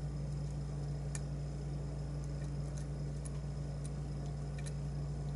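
Faint, scattered metallic clicks of a lock pick working the pins of a pin-tumbler challenge lock, about six in all, over a steady low hum.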